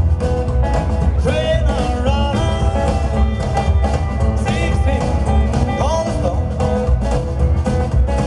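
Live rock-and-roll band playing: acoustic and electric guitars, upright bass and drums over a steady beat, with a lead line of bending, sliding notes on top.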